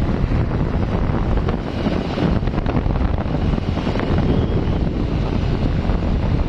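Heavy wind buffeting the microphone of a moving motorcycle, a loud, unbroken rumbling rush that stays steady throughout.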